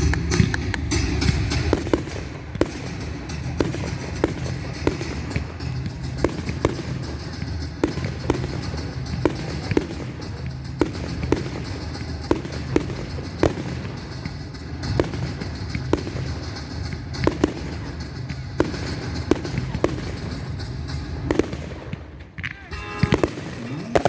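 Fireworks display: a steady string of sharp bangs, about one or two a second, with music playing underneath.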